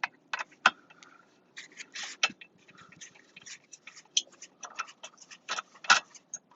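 Irregular clicking of a socket ratchet working a 7 mm bolt on a car's dashboard, with short runs of quick clicks and a few sharper taps.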